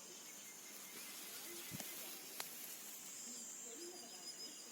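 Faint outdoor farm ambience: a steady high hiss with a few faint distant calls, and one sharp click about two and a half seconds in.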